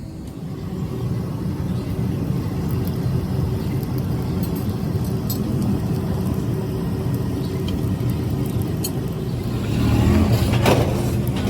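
Steady low rumble of a running motor or machinery, with a few faint clicks, growing louder about ten seconds in.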